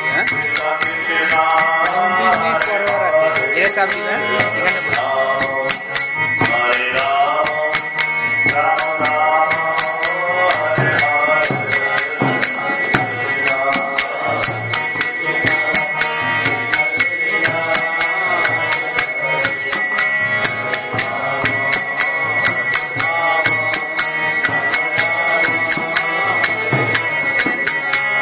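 A man's voice singing a devotional chant, accompanied by small hand cymbals struck in a fast, steady beat whose ringing carries throughout.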